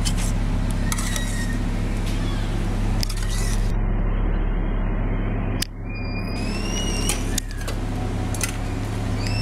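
Metal ladle knocking and scraping against an aluminium cooking pot as soup is scooped out, several separate clinks over a steady low hum.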